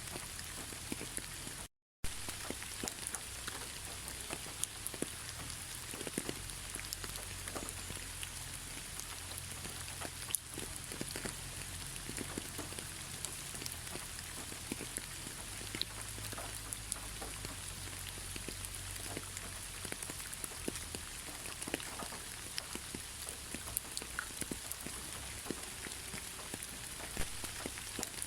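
Steady rain falling, with many individual drops ticking through an even hiss. The sound cuts out for a moment about two seconds in.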